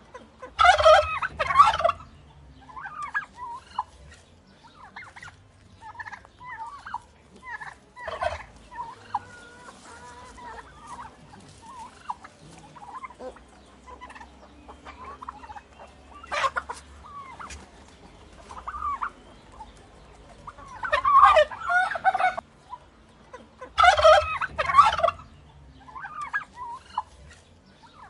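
Turkeys gobbling: several loud gobbles, the strongest about a second in and again around 21 and 24 seconds, with many shorter, softer calls in between.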